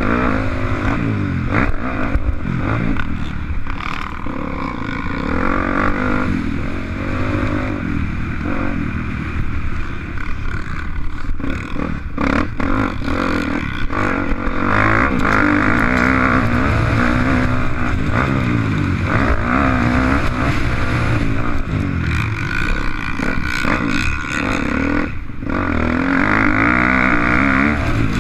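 Motocross bike engine revving up and falling back again and again as it is ridden hard, with rattling and clatter from the bike.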